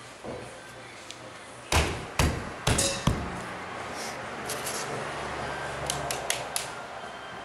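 Four or five sharp knocks and thumps in quick succession about two seconds in, then a steady low rumble with a few faint clicks.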